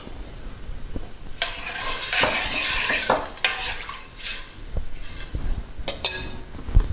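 A spoon stirring and scraping through an onion-and-spice sauce in a cooking pot, with a couple of sharp metal clinks about six seconds in.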